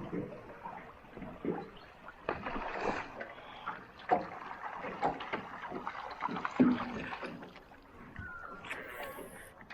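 A small boat moving on the water: irregular splashes and sloshing with scattered knocks against the hull.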